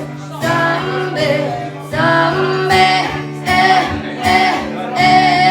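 A song with singing over guitar accompaniment, the vocal holding long drawn-out notes.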